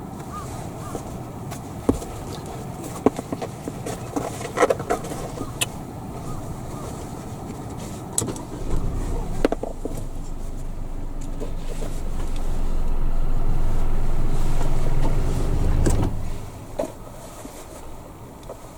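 Low rumble of a motor vehicle that builds over several seconds, holds, then stops abruptly, with scattered sharp clicks before it.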